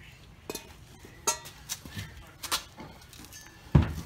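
Sharp metallic clinks of exhaust parts being handled, four or five spread through the first two and a half seconds, one ringing briefly. Near the end comes a single heavy low thump.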